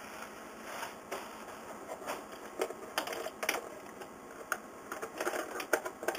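Bubble wrap rustling as it is pulled off a small clock, with irregular clicks and taps from the clock case being handled and wiped.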